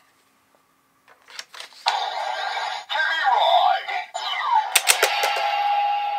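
DX Legendriver toy transformation belt: a few plastic clicks as a card is slotted in, then its small speaker plays electronic sound effects with sliding pitches and the synthesized call "ChemyRide". About five seconds in there is a cluster of sharp clicks as the belt's side panels flip open, and a steady electronic tone follows.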